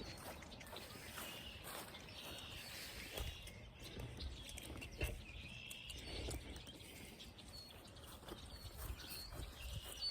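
Faint bird chirps repeating over a low outdoor rumble, with a few soft knocks, the loudest about three and five seconds in.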